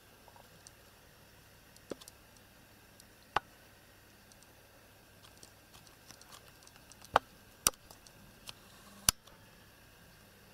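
Quiet room tone broken by a handful of sharp, isolated clicks, the loudest three coming close together in the second half, with fainter ticks in between.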